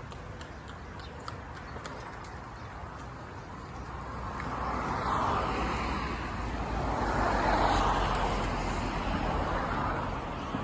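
Road traffic: two cars passing on a nearby road, the tyre and engine noise swelling and fading one after the other over about six seconds.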